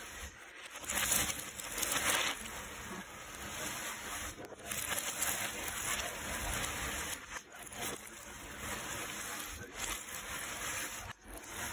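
Hands stirring and scooping a large pile of cardboard jigsaw puzzle pieces on a tabletop: a continuous rustling clatter of pieces sliding over one another, with louder swells as handfuls are lifted and let fall.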